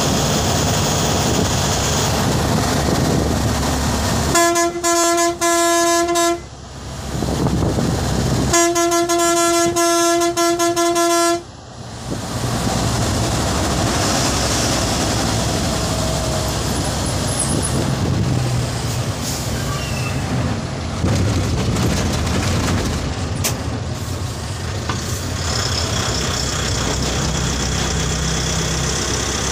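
Steady engine and road noise heard from inside the cab of a heavy vehicle cruising on a highway, broken by two long horn blasts on one steady pitch, each about two to three seconds, the first about four seconds in and the second about eight and a half seconds in.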